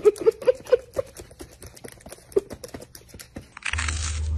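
Laptop keys clattering in quick, uneven clicks as a white-bellied caique parrot scrambles and pecks across the keyboard, with a few short squeaks early on. Near the end this cuts to a cat crunching a dry treat over a steady low hum.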